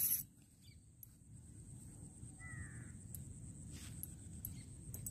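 A sharp swish of a spinning rod being cast and its line paying out, at the very start. About two and a half seconds later, one short bird call.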